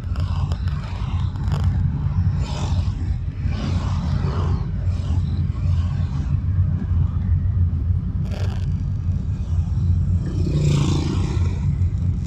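Car driving on a busy city road, recorded by a dashcam: a steady low rumble of engine and tyres, with other traffic swelling past now and then and a brief sharp noise a little past the middle.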